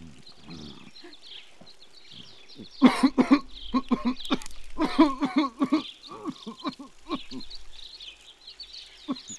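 An old man coughing and clearing his throat in a run of short rough bursts, starting about three seconds in and easing off after about three seconds. Small birds chirp steadily in the background.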